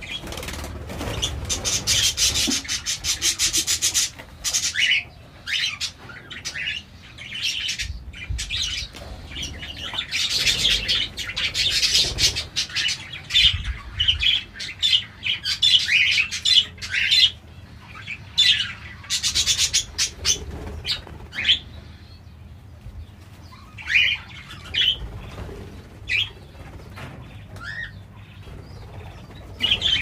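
Budgerigars chattering: rapid high chirps and warbles, dense through most of the stretch and thinning to scattered single chirps near the end.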